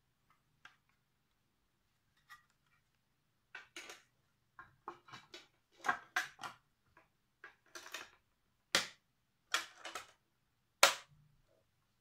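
Hard plastic top of a Rotel U62.5 cylinder vacuum cleaner being fitted back onto its body and clipped down: a run of plastic knocks and rattles, then sharp clicks, the two loudest near the end.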